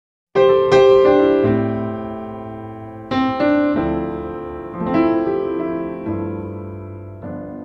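Piano music: a slow phrase of struck chords that ring and fade away, a new chord every second or so, starting about half a second in.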